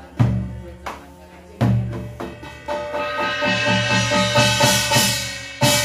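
Korean barrel drum (buk) struck with a stick: two heavy single beats, then a fast run of strokes from about two seconds in with a bright metallic ringing over it, and one more heavy beat near the end.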